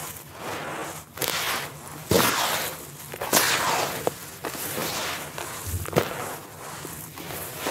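Hands scooping and crumbling grainy, dusty red dirt: handfuls pour back into the tub in gritty rushes, full of crunchy crackles. There are sharper crunches about two seconds in, a little after three seconds and again around six seconds.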